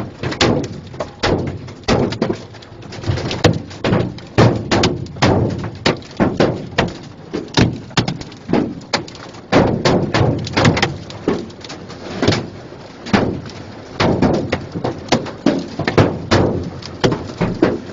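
Hailstones hitting a car's roof and cracked windshield, heard from inside the cabin: loud, irregular thuds, several a second, keeping up throughout.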